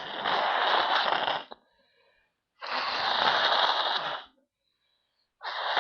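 A person blowing their nose hard, twice, each blow a long noisy rush of air lasting nearly two seconds; a third blast begins near the end.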